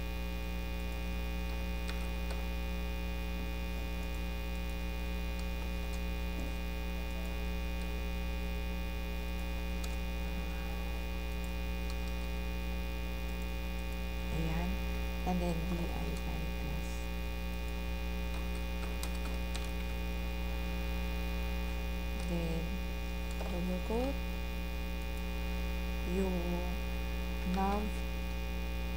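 Steady electrical mains hum with a long series of overtones, unchanging throughout. A few brief murmured voice sounds rise over it around the middle and twice near the end.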